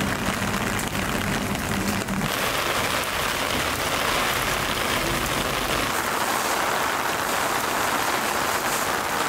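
Steady rain falling and splashing on wet pavement, an even hiss. A low hum underneath stops about two seconds in.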